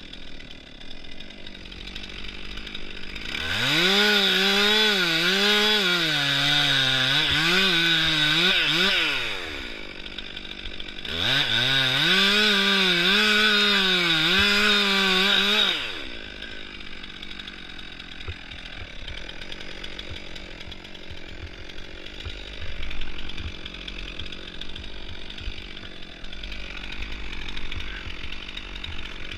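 Small chainsaw cutting into a silver birch trunk in two long full-throttle cuts, the engine note dipping and recovering as the chain bites into the wood. Between and after the cuts it is much quieter.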